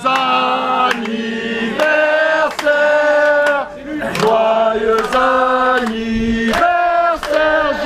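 A group of people singing a chant together in long held notes, with hand-claps about twice a second.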